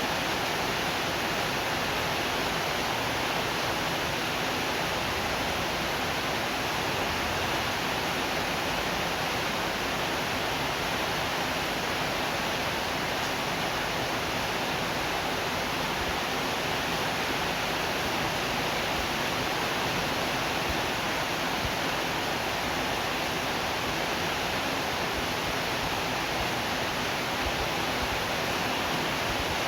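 Steady rain, an even hiss that does not change or break.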